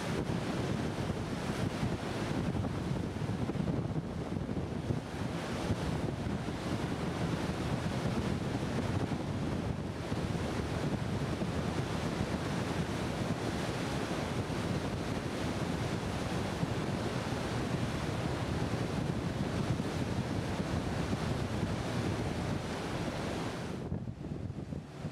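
Steady rush of wind buffeting the microphone on the deck of a moving ship, mixed with the wash of water along the hull; the hiss thins out briefly near the end.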